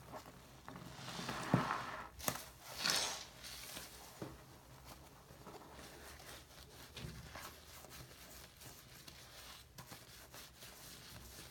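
Yellow bath sponge full of shaving cream lather being squeezed and worked by hand, with loud wet squishes in the first few seconds, then quieter fine crackling of the lather.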